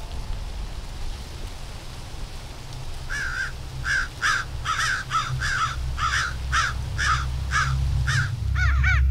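A crow cawing over and over, quickly, about three caws a second, starting about three seconds in, over a steady low rumble.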